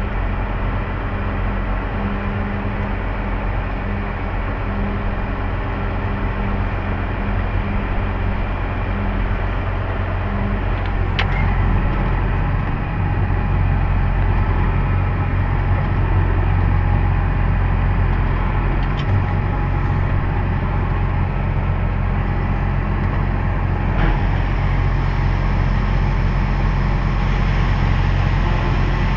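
Large farm machine engine running steadily and loud, with a steady hum that drops out about eleven seconds in, after which it runs a little louder.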